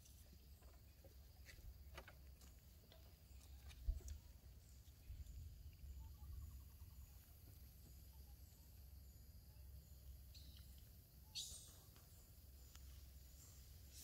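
Near silence: faint woodland ambience with a soft high chirp repeating about every half second and a low wind-like rumble. A single sharp click about four seconds in, and a short hissing rasp a little past eleven seconds.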